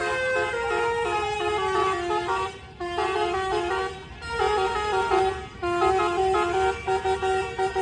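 Indonesian 'telolet' bus horn, a multi-tone musical horn playing a quick melody of stepped notes, several pitches sounding together. It breaks off briefly three times, and near the end it sounds in fast, even pulses.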